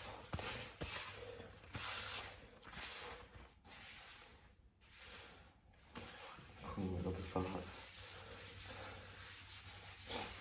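Hand rubbing strokes on a door handle, about one a second, as it is wiped down with rubbing alcohol before painting.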